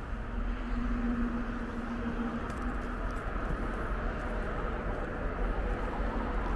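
Steady drone of road traffic, with a low hum standing out over the first two seconds or so.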